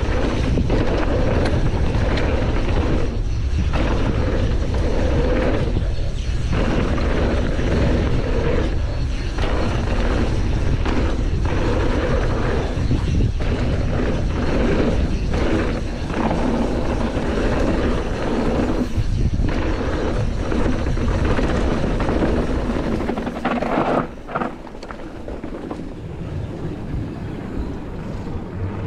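Canyon Torque CF 9 mountain bike descending a dirt bike-park trail: the tyres and bike rumble over the ground and wind rushes over a chest-mounted GoPro. About 24 seconds in the noise drops noticeably as the bike slows.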